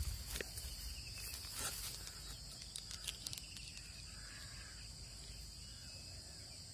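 Steady high-pitched chorus of insects, with a few light clicks in the first half and a low rumble underneath.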